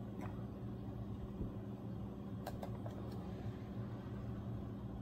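Steady low room hum with a few faint light clicks as two phones are handled and set against each other.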